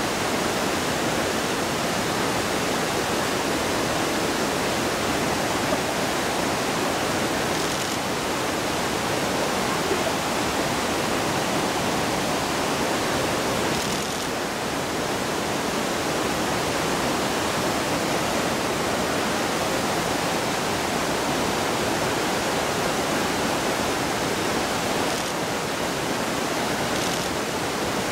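River water rushing steadily, a constant even roar of fast-flowing current.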